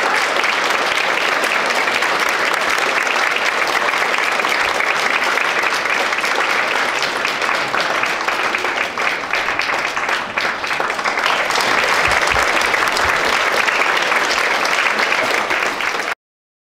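Audience applauding, a steady dense clatter of many hands clapping that cuts off suddenly near the end.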